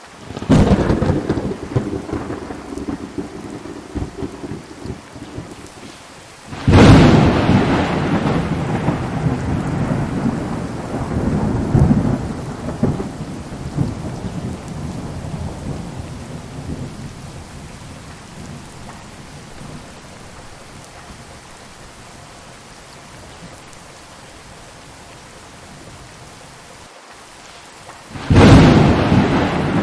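Heavy thunderstorm: steady hard rain with thunder. A sudden clap comes about half a second in. A louder crack near seven seconds rumbles on for several seconds, and another sudden clap comes near the end. Between them the rain settles to a quieter, even hiss.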